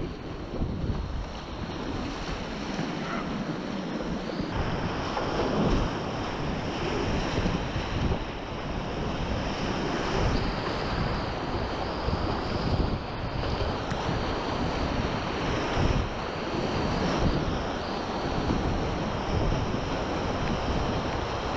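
Whitewater rapids rushing and splashing around a kayak, heard from a camera mounted low on the boat, with water and wind buffeting the microphone in irregular low rumbles.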